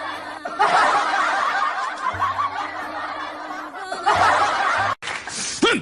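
Canned laughter of many people over background music with steady low bass notes. It cuts off abruptly near the end, followed by a short rising-and-falling call.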